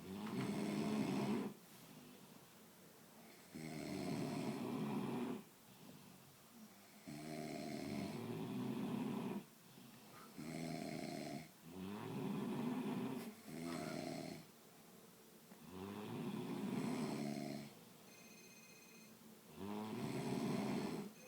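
People snoring in their sleep: a run of about eight long snores every few seconds, some back to back, with short quiet breaths between.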